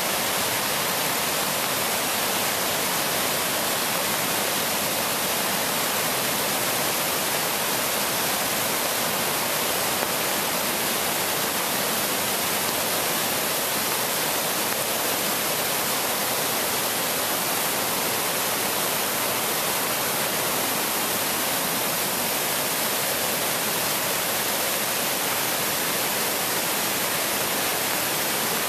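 River in spate after heavy rain: floodwater rushing over rapids, a steady hissing rush of white water with little low rumble.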